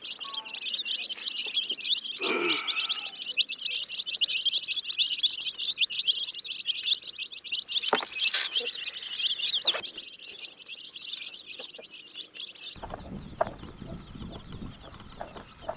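A brood of young chicks peeping continuously in a dense chorus of rapid, high cheeps, with a few sharp clicks. About thirteen seconds in, the chirping turns quieter over a low rumbling noise.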